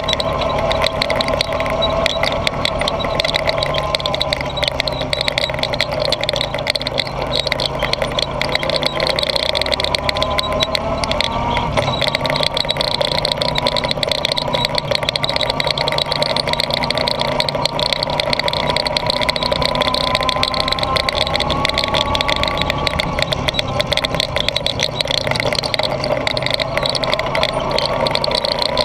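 Honda ATV's single-cylinder four-stroke engine running under way, heard on board; the engine note rises and falls with the throttle, dipping and picking up again about twelve seconds in.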